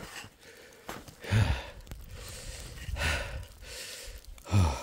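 A hiker breathing hard from the effort of a steep climb, with a loud, gasping breath about every second and a half.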